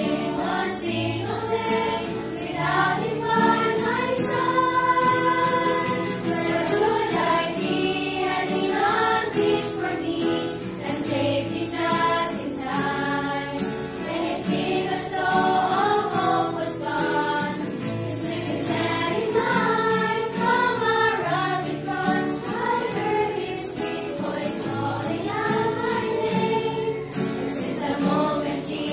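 Women's choir singing a gospel song, accompanied by an acoustic guitar.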